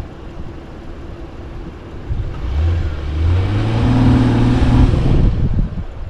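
Honda Passport's V6 engine revving hard for about three seconds, starting about two seconds in and dropping off near the end, as the SUV, stuck in a deep rut, tries to drive out. Wind buffets the microphone before the revving.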